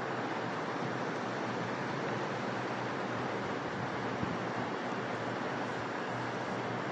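Steady hiss of background noise with no voice, even and unchanging, with one faint click about four seconds in.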